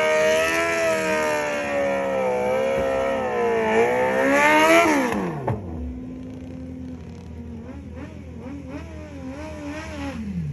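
Suzuki Hayabusa's inline-four engine held at high revs during a burnout, its pitch wavering and then climbing to a peak about five seconds in before dropping sharply as the throttle shuts. It then runs more quietly with short rises and falls in revs, falling away near the end.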